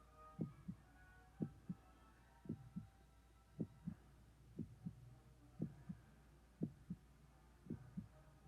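A slow, steady heartbeat: eight double thumps (lub-dub), about one beat a second, over a faint steady low hum.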